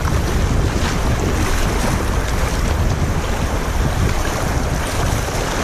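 Rushing riffle water splashing against a kayak's bow as it runs downstream, with wind buffeting the microphone and adding a steady low rumble.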